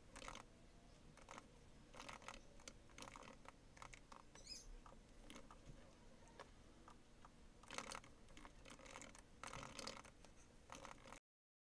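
Faint typing on a laptop keyboard, key clicks coming in irregular bursts with pauses between; it cuts off suddenly near the end.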